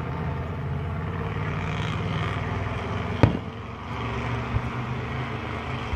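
Steady low hum of a running vehicle engine, broken a little over three seconds in by one sharp firework bang and, about a second later, a fainter thud.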